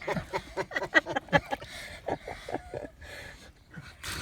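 People laughing in a run of short, breathy bursts, fading out after about three seconds, with a brief splash-like noise near the end.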